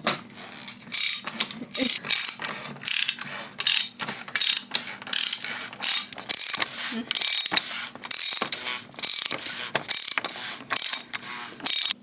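Hand ratchet wrench cranked back and forth, its pawl clicking in quick repeated bursts, a couple of strokes a second, as a fastener is turned under the car.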